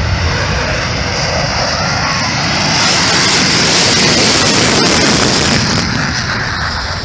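Military aircraft flying past. Its engine noise swells about three seconds in and fades again near the end.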